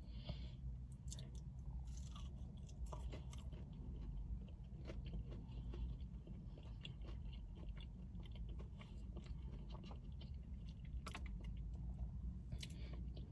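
Close-up chewing of a crispy breaded plant-based fried chicken nugget: small crunches and wet clicks scattered throughout. Underneath is the low steady hum of the car's engine idling.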